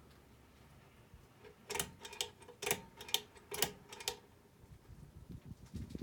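Ball-chain pull chain on a Hunter Dimensions ceiling fan being pulled and released: a quick run of metallic clicks and chain rattles against the metal switch housing, with a short ring, over about two seconds. A few faint low thumps follow near the end.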